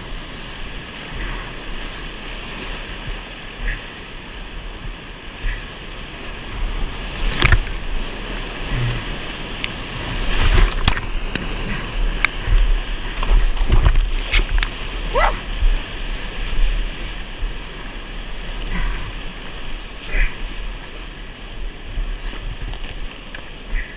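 Rushing whitewater of a Class IV rapid all around a kayak, with water splashing onto the camera housing. A series of sharp splashes comes through the middle, where the rushing is at its loudest.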